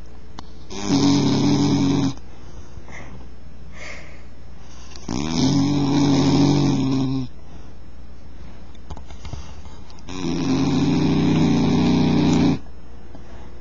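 Bull terrier snoring: three long, pitched snores about five seconds apart, each lasting about one and a half to two and a half seconds.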